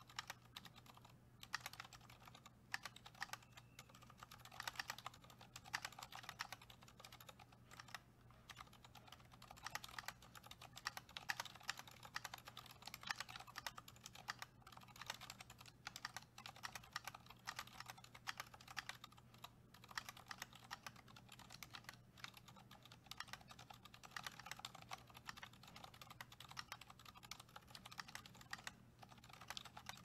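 Quiet, steady typing on a mechanical keyboard fitted with Zilents 67g silent tactile switches: a dense run of soft, dampened keystrokes.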